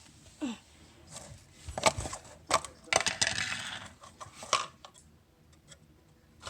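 Board game box and pieces being handled: a string of separate clicks and knocks of small hard objects, the loudest about two seconds in, with a short rustle in the middle.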